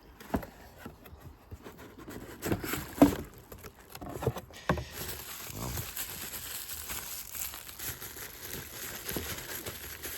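Packaging being handled and unpacked: rustling and crinkling with irregular knocks and clicks, the loudest knock about three seconds in, then steadier rustling.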